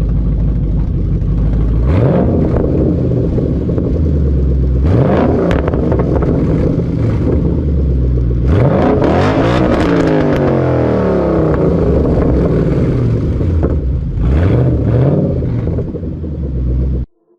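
2012 Mustang Boss 302's 5.0 L V8 revved through its aftermarket axle-back exhaust: four rev blips, the third the longest and falling back slowly, settling to a lumpy idle between them. The sound cuts off abruptly near the end.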